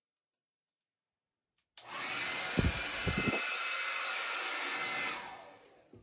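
Revlon hair dryer with a wide air concentrator switched on at its high setting, blowing hard for about three seconds, then switched off. A low rumble of air buffeting comes through about a second after it starts.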